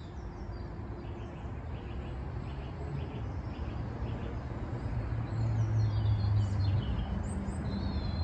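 Small birds chirping in the bankside trees, the calls clearest in the second half, over a steady low outdoor rumble that swells about two thirds of the way through.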